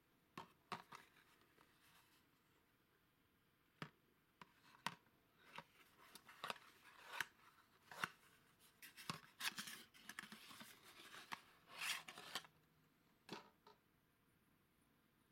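Small cardboard box being handled and opened by hand: faint taps, clicks and scrapes of card, with a longer stretch of scraping and rustling about two thirds of the way through.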